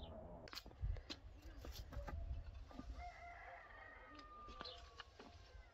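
Rooster crowing, one long call about three seconds in, over a few light clicks and taps from vegetables being handled at the table.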